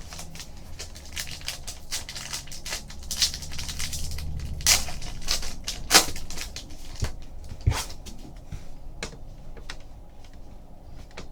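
Trading cards being handled and flipped through by hand: irregular crisp snaps and rustles of card stock, with a few sharper snaps around the middle.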